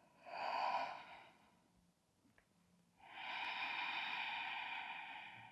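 A woman breathing audibly while holding downward dog: a short breath about a quarter second in, then a long, slow breath from about three seconds in that gradually fades.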